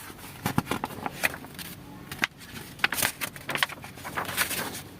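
Scattered, irregular light clicks and taps, with a few soft rustles, the kind of noise made by handling things at close range.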